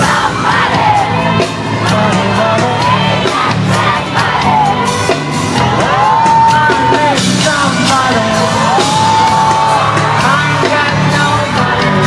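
Loud live pop concert heard from within the audience: amplified music with a steady beat and a singer, including two long held notes, under a crowd of fans screaming and singing along.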